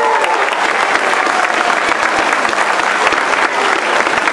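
Audience applauding, a dense, steady clatter of many hands clapping.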